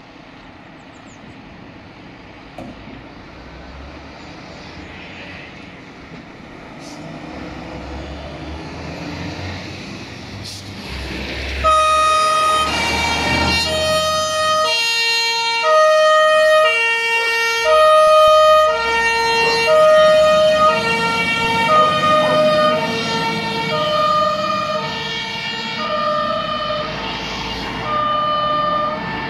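Fire engine (pumper) pulling out: its engine rumble grows steadily louder for about ten seconds. Then its two-tone siren starts and alternates regularly between a high and a low note, the sign of an emergency run.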